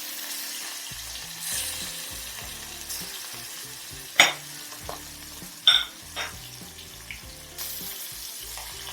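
Fish pieces frying in hot mustard oil in a kadai: a steady sizzle, with a few sharp clicks about four and six seconds in.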